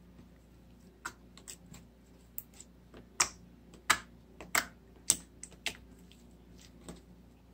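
Homemade metallic slime being squished and poked by hand for ASMR, giving irregular sharp sticky clicks and pops, the loudest few in the middle.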